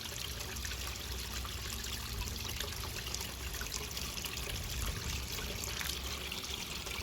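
Backyard pond waterfall running, water trickling steadily down into the pond.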